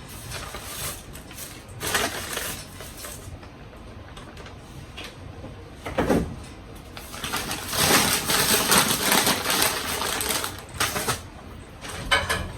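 Rustling and crinkling of paper food packaging in several bursts, the longest from about seven to ten seconds in.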